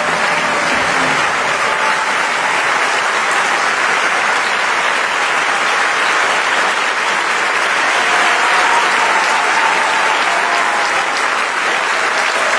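Large concert-hall audience applauding, a dense, steady clapping that does not let up.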